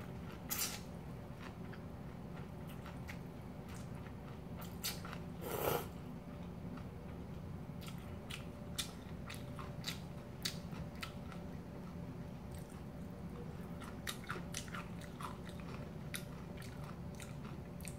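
Close-up eating of cold kimchi noodles: noodles slurped in, then steady chewing with many small wet mouth clicks, with louder slurps near the start and about six seconds in. A steady low hum lies under it.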